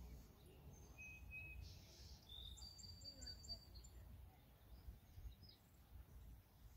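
Near silence with a low rumble, and a few faint high bird chirps in the first half.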